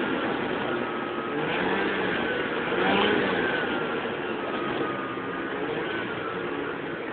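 Lynx GLX snowmobile's engine running while riding across snow, its pitch gliding up and down with the throttle. There is a brief knock about three seconds in, and the engine sound eases off slightly toward the end.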